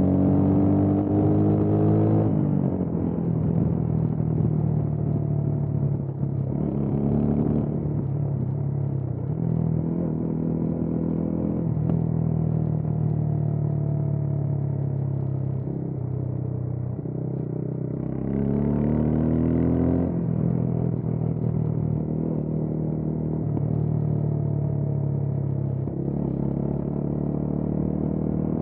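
Motorcycle engine heard on board while riding. The pitch climbs and then drops sharply at gear changes about two, seven and twenty seconds in, with steady cruising between.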